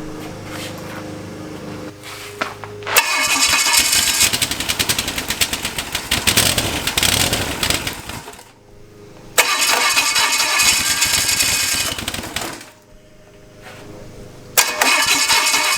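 The starter is cranking a 283 small-block Chevy V8 that has only one cylinder head fitted. There are three separate bursts of cranking with short pauses between them.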